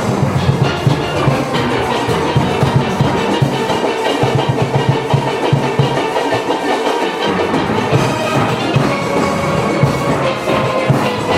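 A steelband playing: many steel pans sounding together over rhythmic bass-pan strokes. The lowest bass notes drop away for about a second past the middle, then return.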